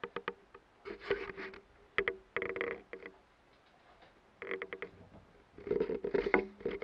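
Small hobby servos on a multirotor frame buzzing and clicking in short bursts, with a steady hum under each burst, as the frame is tilted by hand during a wired test of the APM 2.5 flight controller. The bursts come in four or five separate spells with quiet gaps between them.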